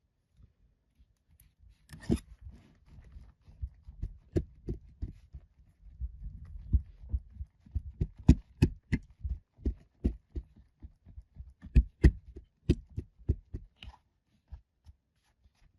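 Kinetic sand and its packaging being handled up close: a string of irregular soft thumps and sharp little taps, a few to several a second, starting about two seconds in and thinning out near the end.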